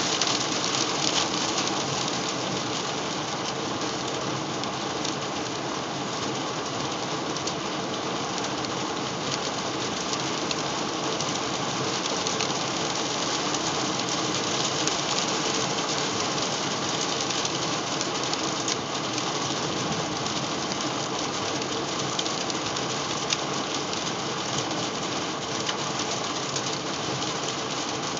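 Hail pelting a van's roof and windshield, heard from inside the van: a dense, steady clatter of countless small impacts.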